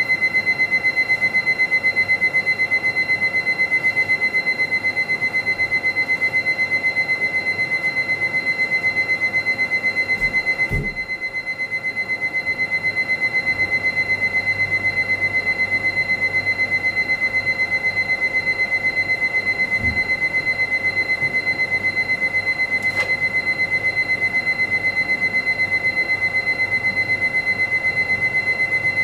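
A high electronic beep tone, pulsing rapidly and without a break, like an alarm. A soft low thump comes about eleven seconds in, and the beeping dips slightly just after it.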